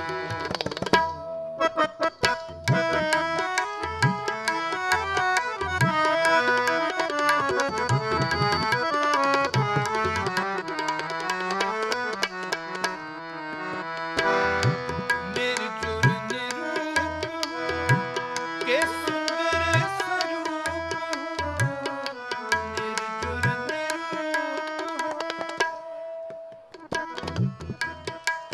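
Harmonium playing a melody over held notes, with tabla accompaniment in Sikh kirtan style; the tabla's bass drum bends in pitch under quick strokes. Near the end the harmonium briefly stops, leaving a few tabla strokes before it comes back.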